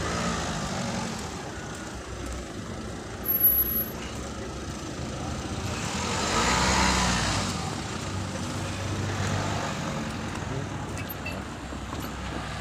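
Road traffic: cars driving over the level crossing, one passing close about six to seven seconds in, its engine and tyre noise swelling and fading. A short bump about three and a half seconds in is the loudest moment.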